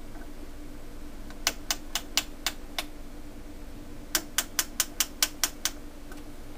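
Detented rotary switch on the front panel of a Leader LBO-513A oscilloscope being turned, clicking through its steps in two quick runs of about six and eight clicks, roughly five a second. A faint steady hum lies underneath.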